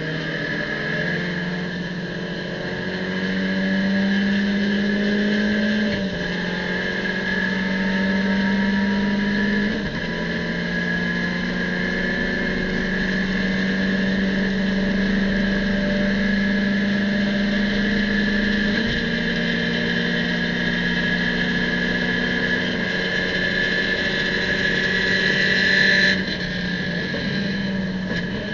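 In-cabin sound of an Abarth race car's turbocharged four-cylinder engine under full throttle, pulling up through the gears with two quick upshifts in the first ten seconds. A long pull in fifth gear follows, and the engine note drops off near the end as the throttle is lifted.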